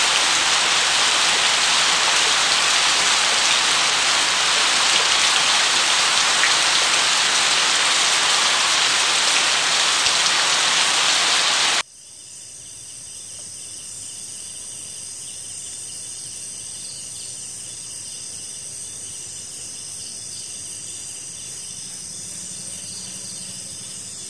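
Heavy, steady rain for about twelve seconds, then an abrupt cut to a quieter night-time jungle atmosphere of insects holding steady high-pitched tones.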